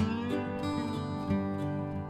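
Instrumental background music led by a plucked, guitar-like string instrument.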